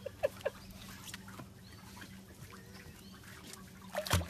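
A duck quacking in a few short, quick calls at the start, then a lull, and one louder, sharp sound near the end.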